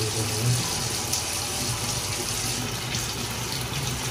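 Tap water running steadily into a sink.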